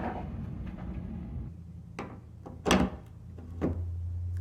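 Wooden bed side rail's bracket being slotted onto the bolts of the headboard: a few sharp knocks and thuds, the loudest a little over halfway through, over a steady low hum.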